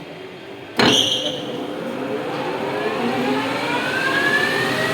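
A lathe starting up: a sharp clunk about a second in as it engages, then the motor and spindle speeding up, with a whine that climbs steadily in pitch.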